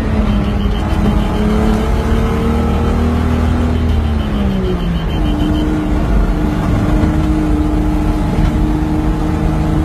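Rally vehicle's engine running hard under load, heard from inside the cab over a rough rumble from the ride. The engine note sinks for a moment and then settles on a higher steady pitch about five seconds in.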